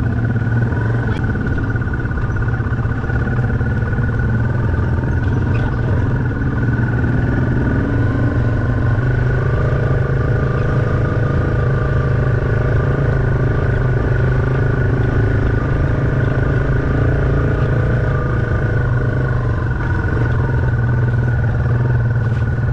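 Dual-sport motorcycle engine running steadily at an even trail pace, heard close up from the bike carrying the camera. A low drone dominates, with a steady high whine over it.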